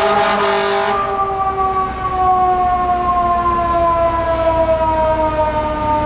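FDNY fire engine's mechanical siren, wound up and now running down, its wail sinking slowly in pitch. A burst of hiss comes in the first second.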